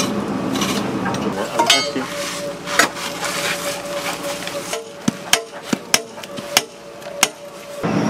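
Clattering and scraping work noise, then about half a dozen sharp hammer blows at uneven intervals, over a steady machine hum.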